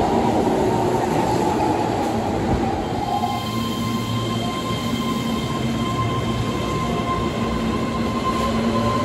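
Keihan electric train running along an underground station platform: a steady rumble of wheels on rail with a motor whine that slowly falls and stops about three and a half seconds in. After that, thin steady high-pitched tones carry on over the rumble.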